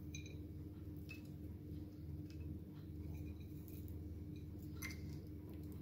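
Quiet room tone with a steady low hum, broken by a few faint light ticks.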